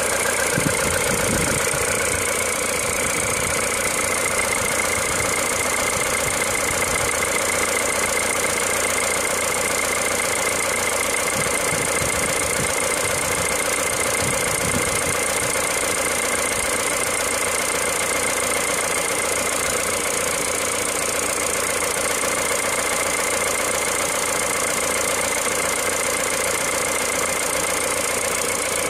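An engine idling steadily, with an unchanging hum and whine throughout.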